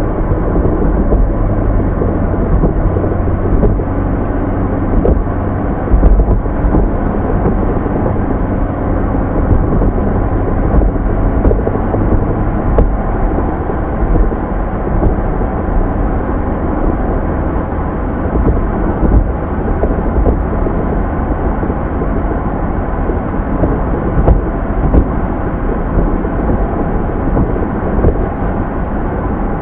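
Car driving, heard from inside the cabin: a steady low rumble of engine and tyres on the road, with a couple of low thumps about 6 seconds in and near the end.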